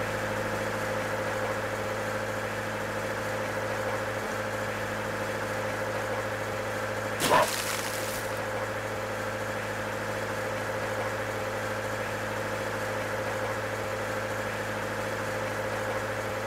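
Boat engine idling with a steady drone. A short, louder noise breaks through about seven seconds in.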